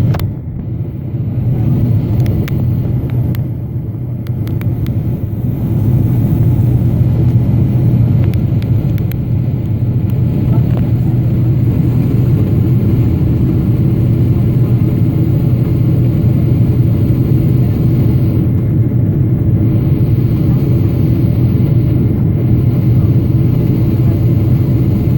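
Boeing 777-300ER in flight on its landing approach: a steady low rumble of engines and airflow, heard inside the cabin, getting a little louder about six seconds in.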